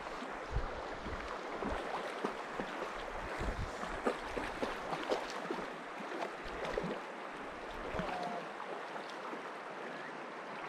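Shallow mountain river running over cobbles: a steady rush with small irregular splashes and gurgles, and occasional low buffets of wind on the microphone.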